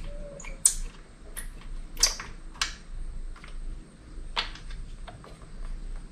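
Metal tool clicks of a 10 mm wrench working a ground bolt in an engine bay. About seven sharp clicks and taps come at irregular spacing, half a second to a second apart.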